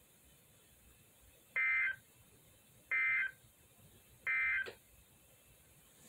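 Midland NOAA weather radio beeping three times, short high-pitched beeps about a second and a half apart, while its warning light is lit.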